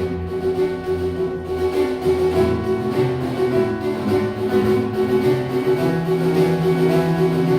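A piano playing without pause, one steady note sounding over changing bass notes.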